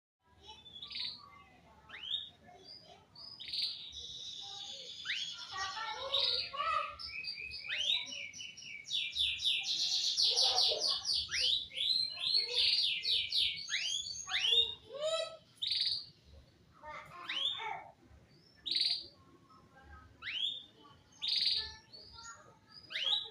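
Male domestic canary singing: sharp chirps and fast trilled rolls, densest through the middle, thinning to separate short chirps toward the end.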